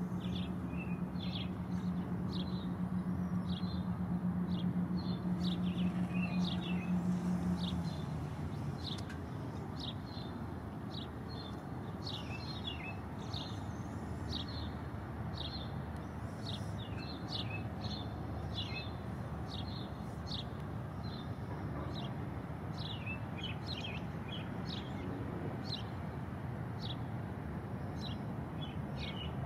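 Osprey calling: a long series of short, high whistled chirps. Underneath, a steady low hum stops about eight seconds in, over constant background noise.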